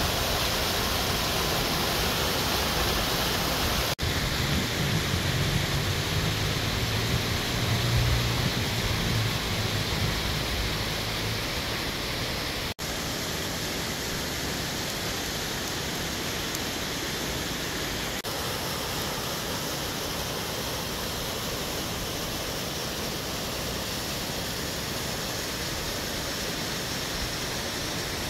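Steady rushing of a small waterfall and a mountain stream over rocks, an even hiss that drops a little in level after a cut a little under halfway through, with a low rumble underneath for several seconds in the first half.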